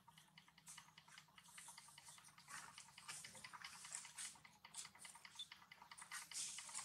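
Near silence, with faint, irregular soft clicks a few times a second.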